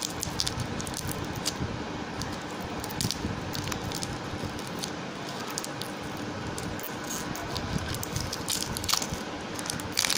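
Clear plastic wrapper crinkling and crackling as fingers peel it off a new 9-volt battery, with many small sharp crackles throughout.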